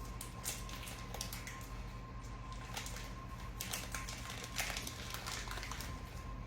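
Scattered small clicks and crinkles of a box of powdered sugar being opened and handled, over a steady faint hum.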